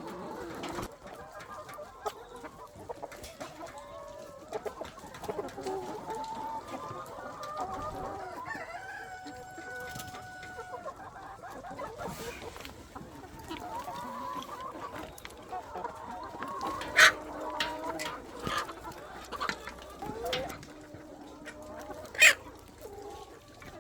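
Chickens clucking throughout, with a rooster crowing once near the middle. Two sharp clicks stand out as the loudest sounds later on.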